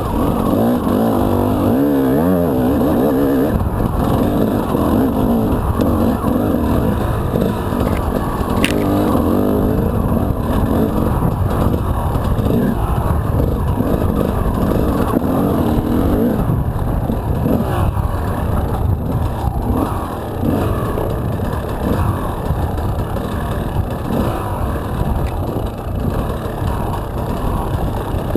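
Enduro dirt bike engine heard from on board while riding, its pitch rising and falling constantly as the throttle is opened and closed.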